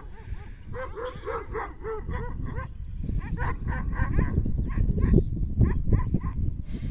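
Kangal shepherd dogs barking: a quick run of about eight barks, roughly four a second, about a second in, then scattered further barks over a low rumbling noise.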